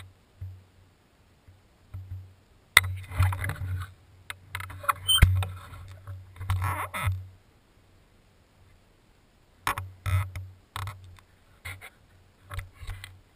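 Intermittent rustling with sharp clicks and knocks close to the microphone, in irregular bursts a second or so long.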